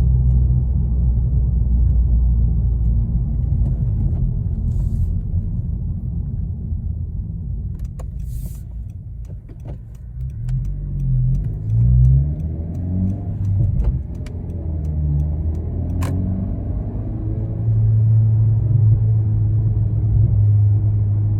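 2022 Honda Civic Si's 1.5-litre turbo four-cylinder and road noise heard from inside the cabin while driving on the stock tune. The engine hum sinks about halfway through, then its pitch climbs and falls over a few seconds as the car shifts and accelerates, before settling into a steady drone near the end.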